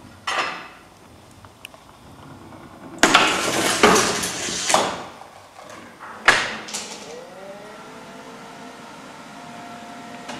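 Parts of a chain-reaction contraption built from rolls of packing tape and print-shop items rolling, sliding and knocking against a worktable. There is a short swish near the start, a rattling clatter about three seconds in that lasts nearly two seconds, and a sharp knock a little after six seconds. After that comes a faint tone that slides up and then holds.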